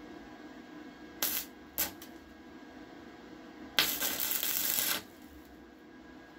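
Stick (electrode) arc welding: the arc strikes twice in short spurts, then crackles and sizzles for about a second as a weld is laid on the steel lathe frame.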